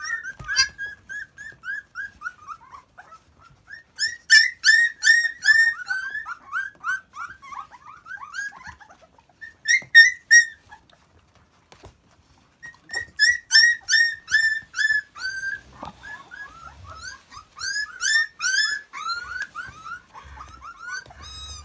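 Litter of young Akita puppies whimpering and squealing from hunger: rapid runs of short, high-pitched cries, several a second, with a brief lull about halfway through.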